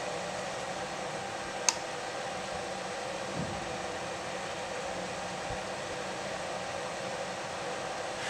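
Car climate-control blower fan running steadily, a constant airy rush with a faint hum. A single sharp click about two seconds in.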